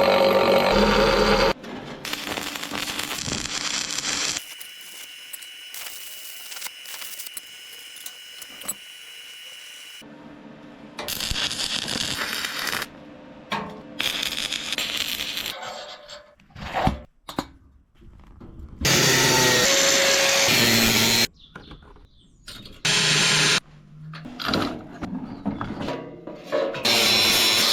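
Metalworking power tools on steel, heard in a string of short cuts: loud noisy stretches of tool work alternate with quieter passages, one of which holds a steady high whine.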